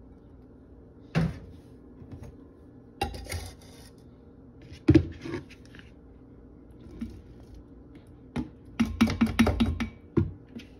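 Dry dog food scooped and dropped into a glass bowl: a few separate clatters, then a rattling run of pieces hitting the glass near the end.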